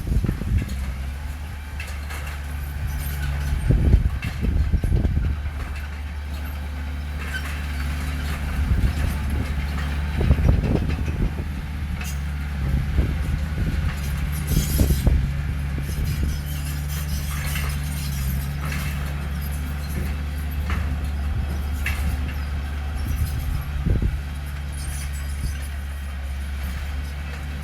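Heavy diesel engine of a bulldozer working at a steady drone, with irregular metallic knocks and clatter from the machine a few times.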